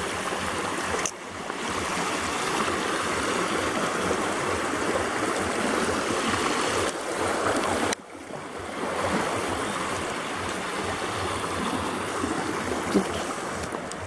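Shallow river water rushing steadily over flat rock slabs and small riffles, briefly dropping away twice.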